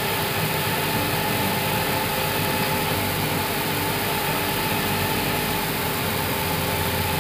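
Steady background noise in an Airbus A320 cockpit on the ground: an even rush of air with a faint, unchanging hum.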